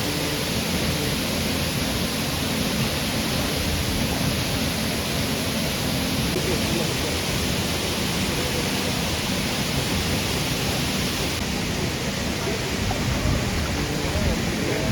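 Steady, unbroken rush of a large waterfall's falling water.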